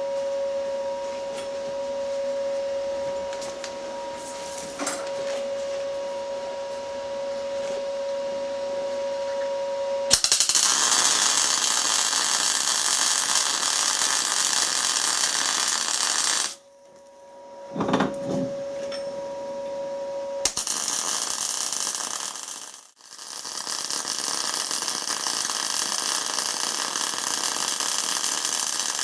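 MIG welder arc running as a bead is laid around the inside of a tractor half-shaft bearing's outer race, so that the weld shrinks the race as it cools and it drops out. A steady hum comes first; the welding starts about ten seconds in, stops for a few seconds, then runs again with one brief break to the end.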